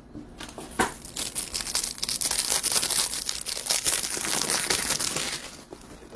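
Foil wrapper of a baseball card pack crinkling and tearing as it is opened by hand, a dense crackle that fades out near the end.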